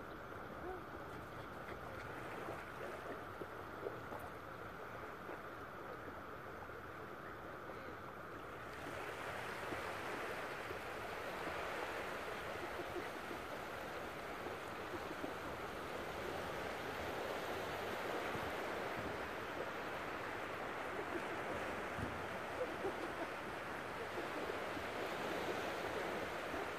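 Steady wash of ocean surf mixed with wind, growing louder and brighter about nine seconds in.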